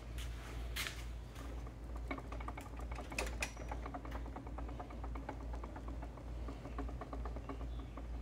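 The powerhead of a 1986 Evinrude 20 HP two-cylinder outboard being turned over slowly by hand at the flywheel, giving a rapid run of small clicks and ticks with a few sharper clicks, over a steady low hum. The owner suspects worn connecting rod bearings.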